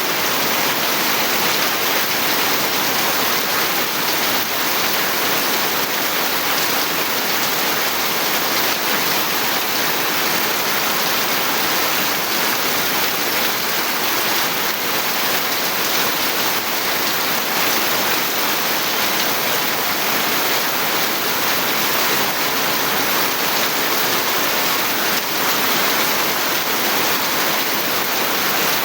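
Steady rain falling, an even unbroken hiss of downpour.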